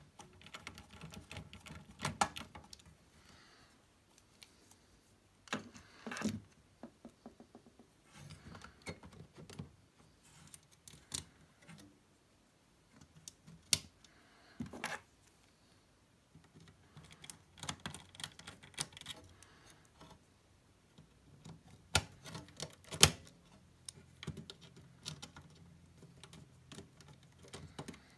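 Scattered small metallic clicks, taps and short rattles of a screwdriver and screws working on the aluminium chassis of a Heathkit amplifier as a sub-assembly is screwed back in, with quiet gaps between and one sharper knock late on.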